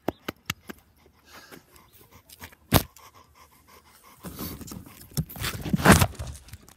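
A dog panting and snuffling up against the microphone in the second half, after a few sharp clicks and taps near the start, the loudest one about three seconds in.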